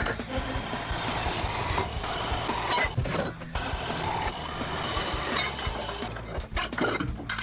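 Metal-cutting band saw running, its blade cutting through steel tube: a steady hiss with scattered clicks, breaking off briefly twice.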